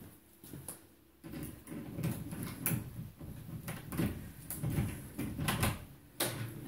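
Rustling, shuffling and a series of sharp knocks and clicks close to the microphone as a person moves about right next to it, starting about a second in.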